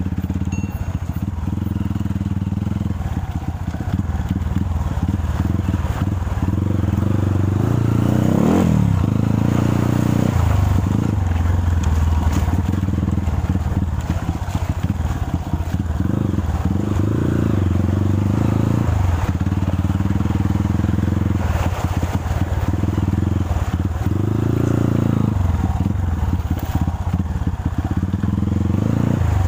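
Dirt bike engine running under load on a rocky river-bed trail, its revs rising and falling several times as the rider works the throttle.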